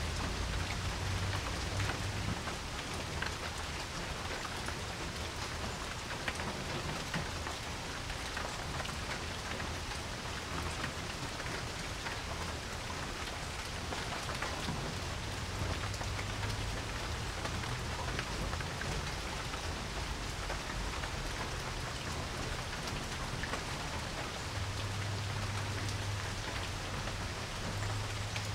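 Steady rain falling on a porch, with a dense hiss and individual drops ticking. A low rumble swells and fades a few times, strongest near the start, in the middle and near the end.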